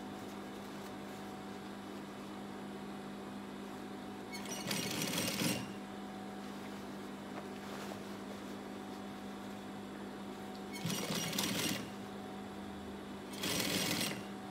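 Gemsy industrial single-needle sewing machine stitching through denim in three short runs of about a second each, separated by pauses, over a steady low hum.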